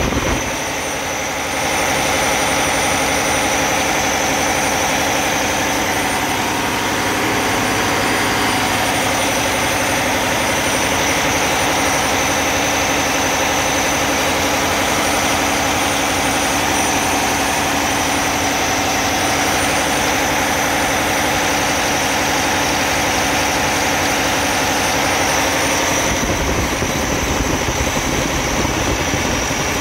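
Cummins ISX15 15-litre inline-six diesel engine idling steadily, heard close up in the engine bay.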